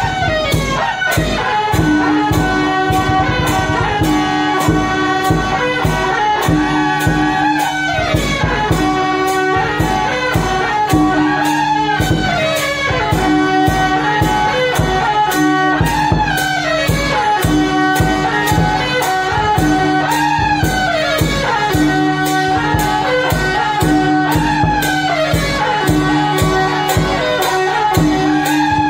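Traditional Taiwanese temple-procession band music: a large barrel drum and sharp metal strikes keep a fast, even beat under a held drone and a loud high melody that slides up and down in pitch.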